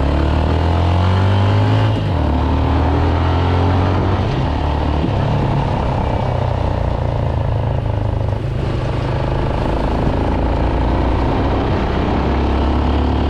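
Motorcycle engine running under way as the bike picks up speed, its note stepping down a couple of times, over a steady rush of wind and tyre noise on a wet road.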